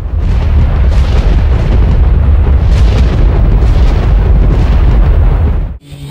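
Loud, rough rushing noise of a quadcopter in flight, wind and propeller wash buffeting its onboard camera microphone, heaviest in the low end. It cuts off abruptly near the end.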